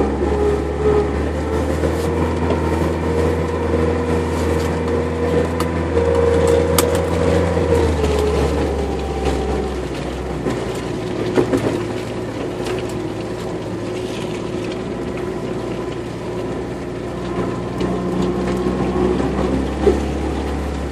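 Engine of an off-road vehicle running as it drives along a rutted dirt track, its note rising a little, easing off about ten seconds in and picking up again near the end, with occasional sharp knocks and rattles.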